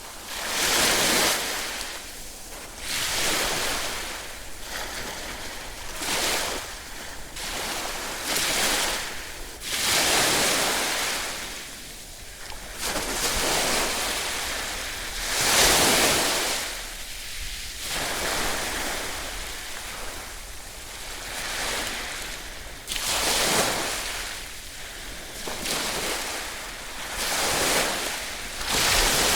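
Ocean waves breaking and washing in, one after another, each surge of hissing surf swelling and fading every two to three seconds; the biggest surge comes a little past halfway.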